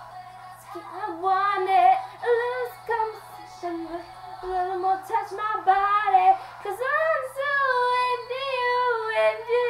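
A young girl singing a pop melody solo into a webcam microphone, ending on a long wavering held note, over a faint steady low hum.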